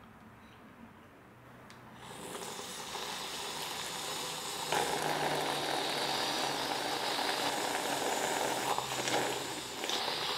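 One long, drawn-out slurp of tortilla soup from a spoon. It starts about two seconds in, gets louder about halfway through, and stops just before the end.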